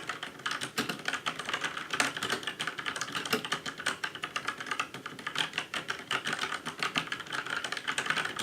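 Typing on a Rexus Legionnaire MX6 mechanical keyboard with Outemu brown switches: a quick, uneven stream of key clicks. The switches sound not too noisy, tactile but less clicky than blue switches.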